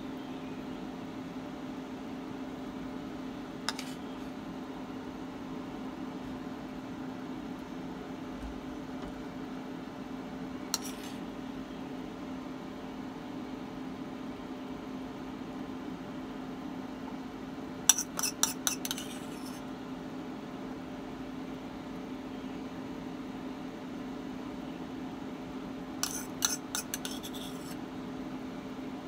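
Metal spoon clinking against small ceramic bowls while beaten egg is spooned into them: single taps about 4 and 11 seconds in, then two quick rattles of clinks, one a little past the middle and one near the end. Underneath is a steady hum from the running induction cooktop.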